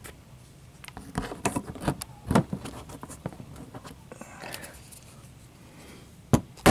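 Plastic clicks and knocks as a push-in plastic retainer is worked into the wheel-well cowling, a quick run of them in the first half and one sharp knock near the end.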